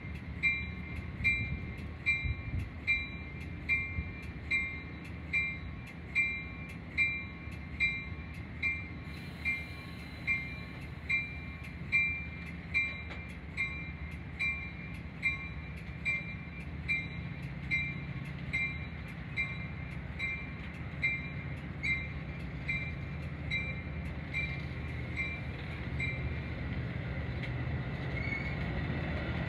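A warning bell dings steadily, a little more than once a second, over the low rumble of a Metra commuter train. The bell stops near the end as the train's rumble grows.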